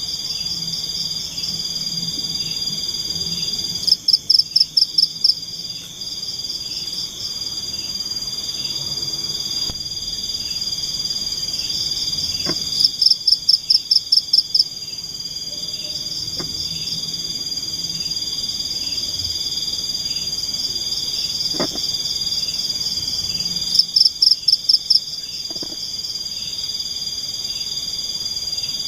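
Night chorus of tropical forest insects: a steady high-pitched drone with a fainter regular ticking under it. Three times, a louder caller breaks in with a quick run of about eight pulses lasting a second and a half.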